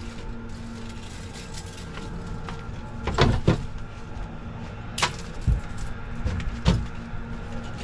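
Several knocks and thumps on a boat as a big catfish is handled out of the landing net, the loudest a double thump about three seconds in, over a steady low hum.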